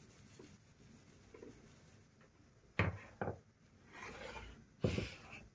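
Kitchen handling sounds as a plastic bag of shredded coconut is shaken over a glass baking dish: a few sharp knocks about three seconds in and again near the end, with a soft rustle between them.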